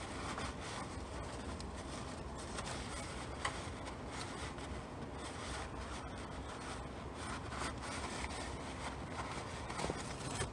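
Cloth towel wiping and rubbing over oily metal engine parts, faint scuffs and rustles over a steady low hum.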